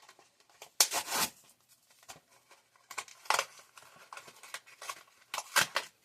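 Die-cast toy car packaging being torn and crinkled open by hand, with three louder rips among quieter rustling.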